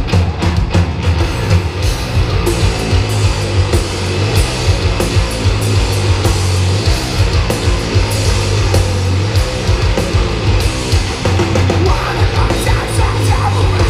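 Heavy metal band playing live through a PA: loud distorted guitars, heavy bass and fast drumming, heard from within the crowd.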